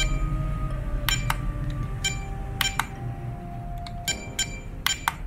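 Short electronic key beeps from a DumboRC DDF-350 RC transmitter as its menu buttons are pressed: about eight quick pings, mostly in pairs. These are the transmitter's button tones, which can be switched off in its sound settings.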